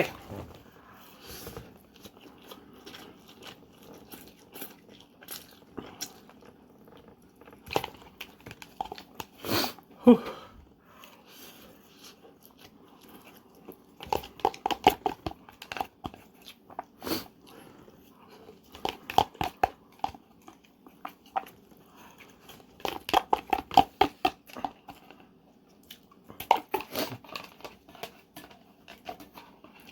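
A person eating spicy instant noodles, chewing in several short bursts of quick wet clicks, with a heavy exhaled "whew" about ten seconds in.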